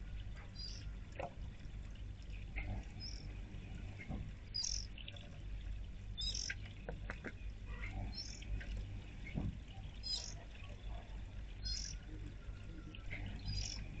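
Birds chirping in short, scattered high calls over the steady trickle of a small garden fountain spilling into its basin.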